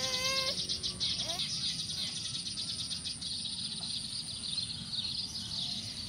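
Eurasian tree sparrows (burung gereja) chirping rapidly and continuously, the calls used to lure the birds in.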